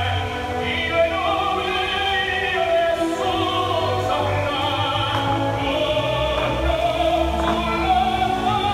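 Operatic music played over outdoor loudspeakers, with a classical singing voice wavering in vibrato over orchestral accompaniment. It is the soundtrack of a musical fountain show.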